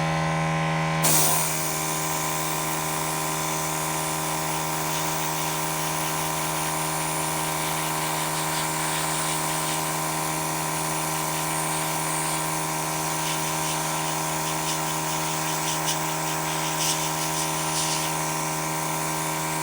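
Airbrush spraying paint, a steady hiss that starts about a second in, over the steady hum of the small compressor that drives it.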